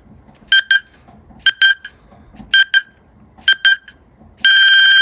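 Countdown timer beeping: a quick double beep about once a second, then a long, loud beep near the end as the time runs out.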